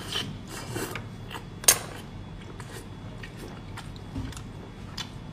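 Close-up sound of a person biting into and chewing a large piece of braised fatty pork: a scattered run of short, sharp mouth clicks, the loudest a little under two seconds in.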